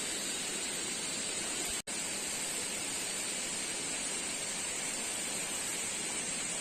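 Steady, even rushing noise with no clear source, broken by a split-second gap about two seconds in.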